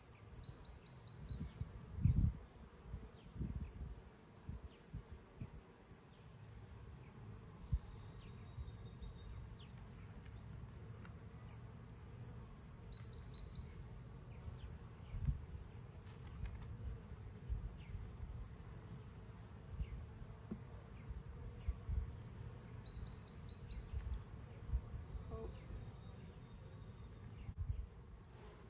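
Honey bees buzzing around an open hive, a steady hum with occasional short knocks from frames and a hive tool being handled.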